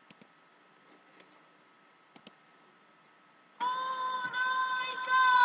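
A few soft clicks, then about three and a half seconds in a recording of a high voice starts singing, holding one long note of a traditional shepherd's love song.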